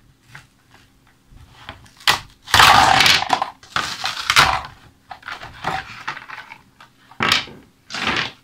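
Stiff clear plastic blister packaging being cut and pulled apart, crackling and crunching in irregular bursts. The loudest run of crackling is about two and a half to four and a half seconds in, with two more sharp crackles near the end.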